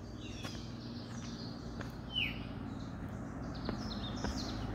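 Songbirds chirping in short calls, including a falling chirp about two seconds in, over a steady low rumble of truck traffic on a nearby highway that slowly grows louder.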